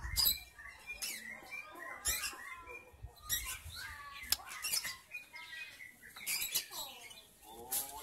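White-rumped shama (murai batu) singing: a rapid string of sharp chirps, clicks and clear whistled notes, several of them quick falling glides.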